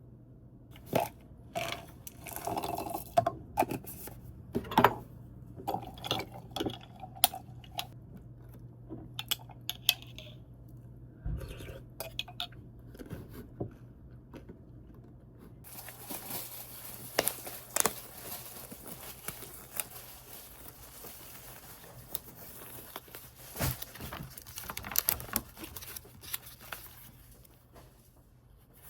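Household handling noise: a string of clicks, knocks and light clatter as objects are moved about, over a steady low hum. About halfway through a steady hiss joins in.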